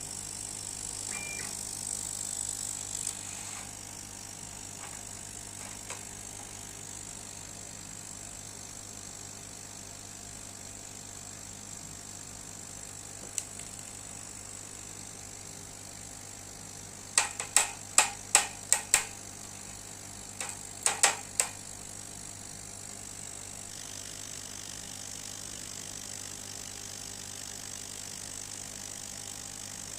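CO2 laser cutting and engraving machine running with a steady hum and a constant high whine. A quick run of six sharp clicks comes about 17 seconds in, and four more about 21 seconds in.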